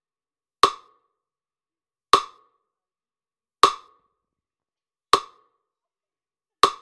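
Metronome clicking at an even beat, one sharp wood-block-like click every second and a half, five in all, with silence between them. It is the beat that paces each dip of the arm and shoulder endurance test.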